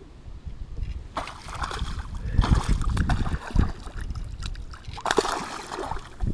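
Water splashing and sloshing around a kayak, in irregular bursts, with low bumps and knocks.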